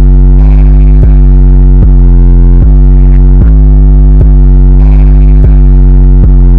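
Heavily distorted, bass-heavy synthesizer music with a very strong deep bass, mastered to full loudness, with a new note about every 0.8 seconds in a repeating loop.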